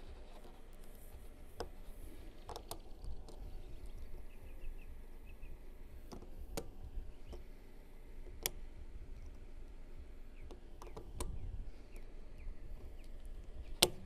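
Needle-nose pliers clicking against the head of a small screw stuck in a tire tread as they grip, twist and slip off, a few scattered sharp clicks with the loudest near the end, over a low rumble.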